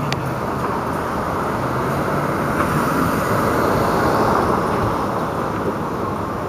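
Street traffic noise: a car drives past, the steady road noise swelling loudest about four seconds in and then easing off.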